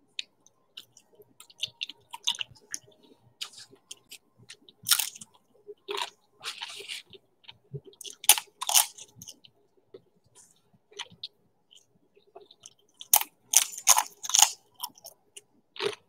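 A person chewing crunchy snack food close to the microphone: irregular crisp crunches and wet mouth clicks, with the loudest crunches about five seconds in, around eight to nine seconds, and again from about thirteen to fifteen seconds.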